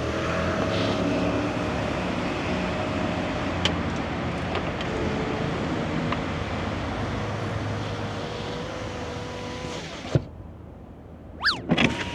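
Steady road and engine noise of a car heard from inside its cabin. About ten seconds in there is a single thump, after which the noise is quieter, and a few quick rising and falling tones come near the end.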